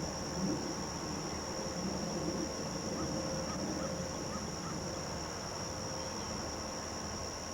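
A steady, high-pitched chorus of crickets, over a low steady rumble.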